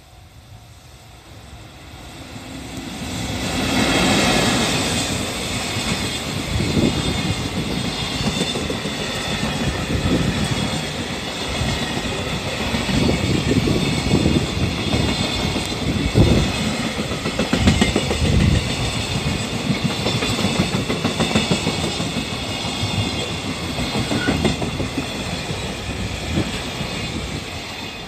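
Freight train hauled by an EF65 electric locomotive passing close by. The noise builds to a peak about four seconds in as the locomotive goes past. Then a long line of container wagons rolls by with steady wheel clatter over the rails, easing a little near the end.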